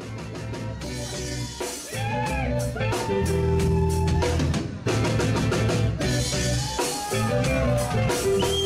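Reggae band music with a drum-kit beat and a heavy bass line, growing louder over the first few seconds.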